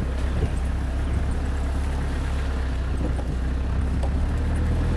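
A 4x4 vehicle driving across a gravel-and-ash riverbed: its engine and tyres make a steady low rumble.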